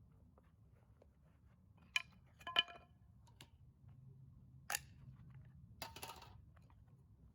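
Small hard objects being handled: a couple of sharp clicks, a ringing clink about two and a half seconds in, another click, then a short rattle near six seconds.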